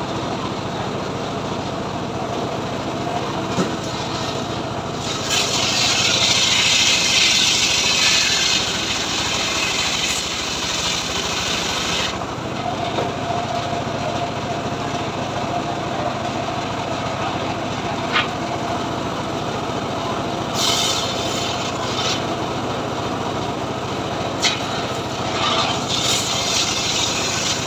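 Engine-driven homemade circular saw running steadily; its blade cuts through a log with a loud hiss from about five to twelve seconds in, runs free with a steady whine, and bites into wood again briefly and then near the end.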